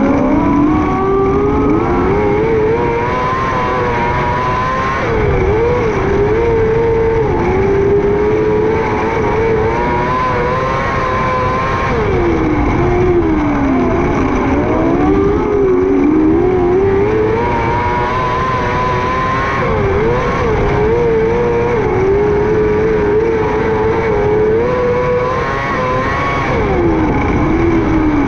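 600cc micro sprint car engine at racing speed, its pitch holding high on the straights and dipping then climbing back through the corners about every seven seconds, lap after lap.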